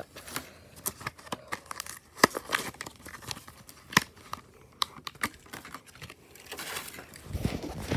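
Clear plastic blister packaging of a toy car crinkling and its cardboard backing card tearing as the pack is opened by hand, with scattered sharp clicks and snaps of the plastic, the loudest about two and four seconds in.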